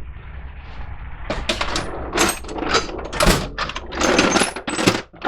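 A rapid, irregular run of clicks, knocks and light metallic clinks, starting about a second in.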